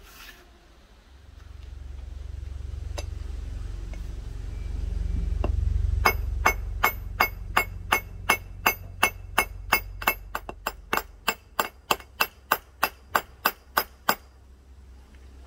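Small hammer peening brass pins into a knife handle scale on a steel plate: a steady run of sharp, ringing metal strikes, about three a second, starting about six seconds in and stopping about two seconds before the end. A low rumble swells and fades under the first half.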